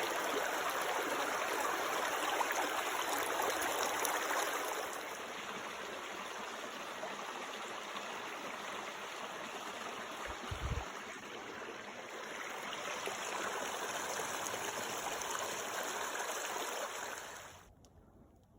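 Small mountain stream running over rocks, a steady rushing of water that grows softer and louder again and drops away about a second before the end.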